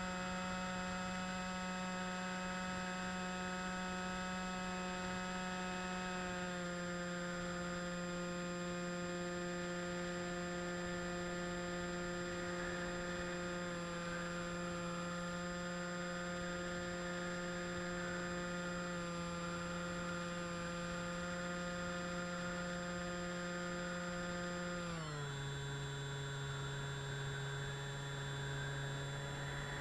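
Electric motor of an FPV model aircraft, heard through the onboard action camera, running with a steady whine rich in overtones. Its pitch steps down slightly about six seconds in and drops more clearly about five seconds before the end, as the throttle is eased back.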